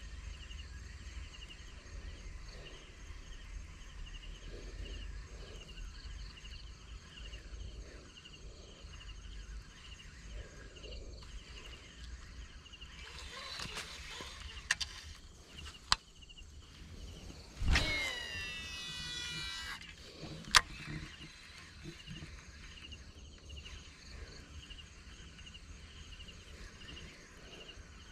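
Outdoor pond-side ambience: insects chirring steadily in a pulsing rhythm, with wind rumbling on the microphone. A few sharp clicks come in the middle, and a little past halfway there is a brief louder noise lasting about two seconds, with tones sliding up and down.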